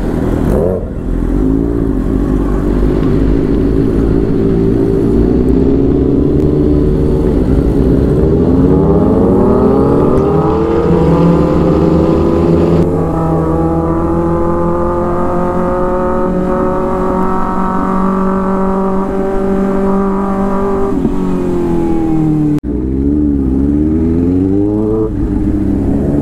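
Kawasaki ZX-6R's 636 cc inline-four engine heard from the rider's seat, pulling away and climbing in pitch as it accelerates through the gears, then holding a steady note while cruising. About 21 seconds in the revs drop as the throttle eases, and after a short break the engine picks up again.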